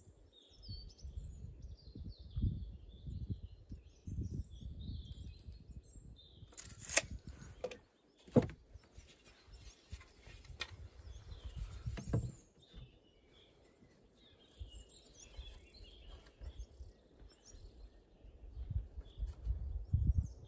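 Songbirds chirping and singing in spring forest over a low, uneven rumble, with a few sharp knocks near the middle.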